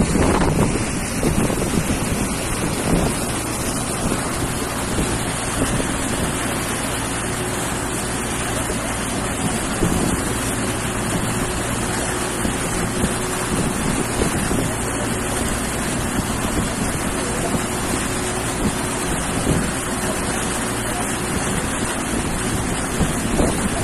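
A motorboat under way: its engine running steadily beneath the rush of water from the hull and wake, with wind buffeting the microphone.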